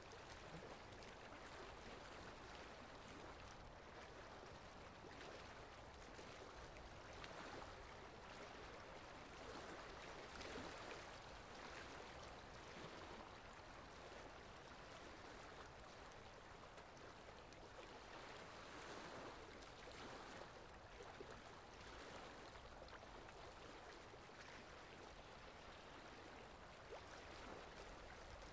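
Faint, steady rain, an even hiss that swells gently now and then.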